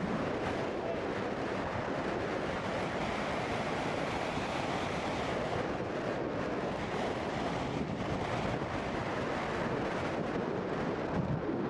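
Steady wind noise on a camcorder's microphone outdoors, an even rushing hiss with no distinct events.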